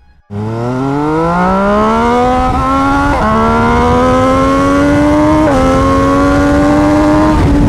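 MV Agusta Brutale Dragster RR's inline three-cylinder engine through a full SC Project exhaust, accelerating hard. The revs climb steadily for about three seconds, then the note dips and climbs again with three upshifts about two seconds apart.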